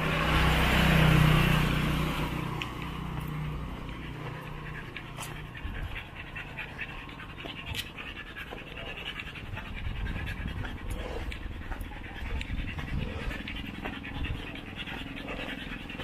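A tired dog panting hard after a long walk. An engine's low hum swells and fades in the first two seconds.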